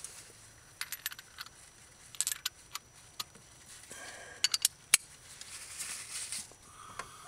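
Light metallic clinks and ticks of hand tools being handled, a socket extension and a spark-plug thread tap, in a few irregular clusters, the sharpest just before five seconds in.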